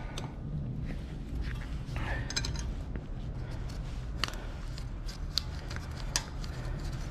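A few sharp, separate light metallic clicks as small brake parts and a bolt are handled and fitted by hand on a car's rear brake assembly, over a low steady hum.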